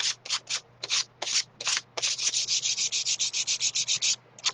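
Sandpaper rubbed by hand along the edges of a painted wooden cutout, scuffing the paint to distress it. Separate slow strokes at first, then about two seconds in a fast, even run of short scrubbing strokes that stops about four seconds in.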